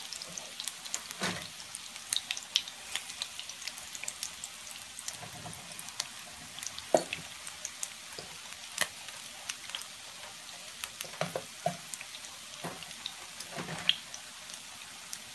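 Salmon croquettes sizzling steadily as they fry in oil in a cast-iron skillet, with scattered sharp pops and clicks, some of them from a metal spoon scraping and tapping in a steel mixing bowl.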